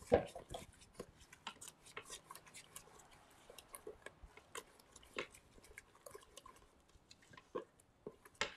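A spatula stirring and scraping a thick, gritty mix of brown sugar, chopped nuts and water in the stainless steel inner pot of an electric pressure cooker: soft irregular scrapes and clicks, thick at first and sparser in the second half.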